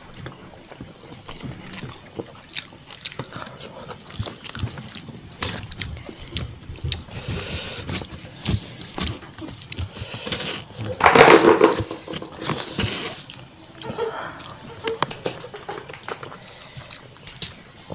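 Close-up mukbang eating sounds: wet chewing, lip smacks and slurping of spicy chicken curry and mushrooms, with airy hissing breaths. There is a louder burst about eleven seconds in and a steady high-pitched whine underneath.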